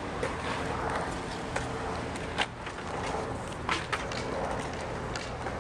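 Skateboard wheels rolling on a concrete skatepark bowl, a steady rumble broken by a few sharp clacks, the loudest about halfway through and two close together soon after.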